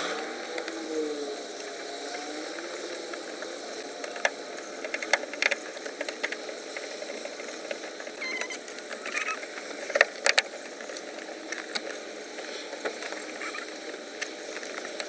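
Scattered clicks, knocks and rattles of plastic car interior trim being handled and fitted back in place, over a steady hiss. The sharpest knocks come about five seconds in and twice around ten seconds in.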